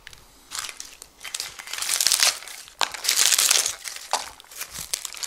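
Dried artichoke head crackling as hands pull apart its dry, papery bracts, in a string of crisp crackly bursts that are loudest about two to three and a half seconds in.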